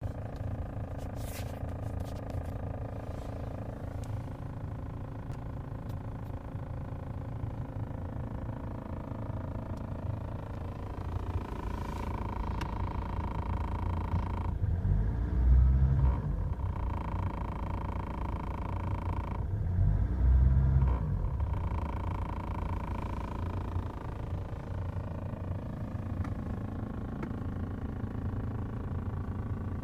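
Knocking from the heater core behind the dashboard of a Ford S-Max 2.0 TDCi, heard against the steady noise of the running car. The two loudest, deepest episodes come about halfway through, a few seconds apart.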